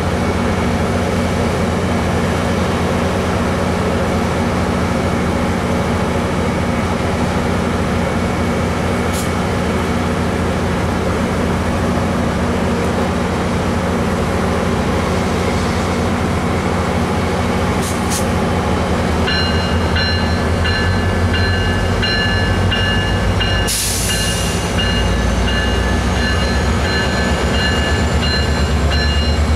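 Diesel locomotive of a commuter train, an MP36PH-3C, running with a steady low drone while standing at the platform. About two-thirds of the way in, a set of steady high tones and a slowly rising whine start up. A short hiss follows, after which the engine note grows louder and deeper.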